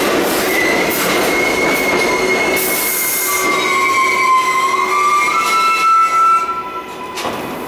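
R62A subway train squealing as it brakes into the station, with high steady squeal tones that step up in pitch. There is a brief hiss about three seconds in, and the running noise falls away about six and a half seconds in as the train slows nearly to a stop.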